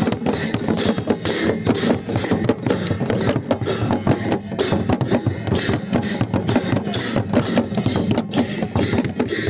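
Double-headed barrel drums (dhol) beaten with sticks, together with brass hand cymbals clashing, in a fast, steady, driving rhythm.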